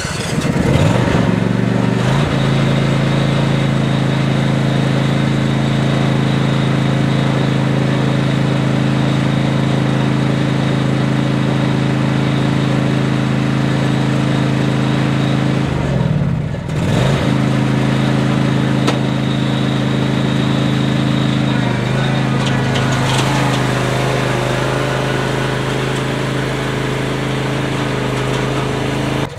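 John Deere Z515E zero-turn mower's 24-horsepower engine starting and settling into a steady run, with a brief dip and recovery about halfway through.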